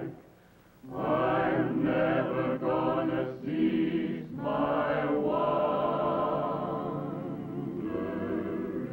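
A choir singing a slow song. The voices break off in the first second, then come back in with phrases and long held notes.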